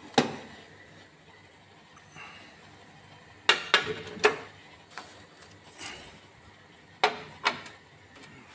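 Ceramic plates and a bowl clinking and knocking as they are taken off a metal oven rack and set down on the oven's open glass door: one sharp knock at the start, three close together about halfway, and two more near the end.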